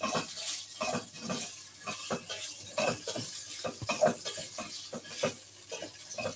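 Crumbled firm tofu frying in olive oil in a hot pan, sizzling with a steady hiss while a utensil stirs it, knocking and scraping against the pan at irregular moments.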